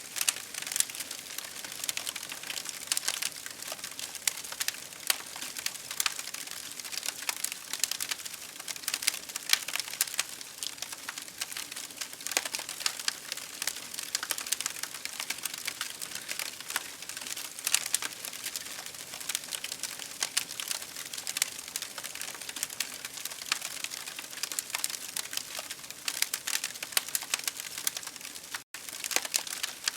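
Campfire crackling: dense, irregular snaps and pops of burning wood over a steady hiss of rain. The sound cuts out for an instant near the end.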